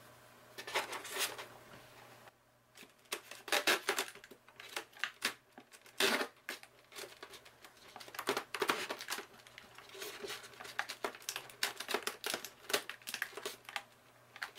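Hands working inside an opened hoverboard chassis: irregular clicks, knocks and crinkling as the battery pack is pulled free of the double-sided tape holding it in.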